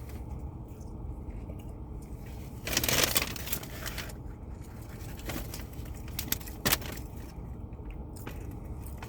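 Rustling and handling noises with a longer crinkle about three seconds in and a few sharp clicks later, over a steady low hum.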